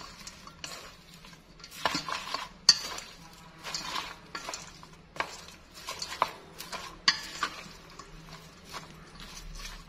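Wooden chopsticks tossing a dressed seafood salad in a stainless steel bowl: irregular clacks of the chopsticks against the metal, roughly one a second, over the soft rustle of the food being stirred.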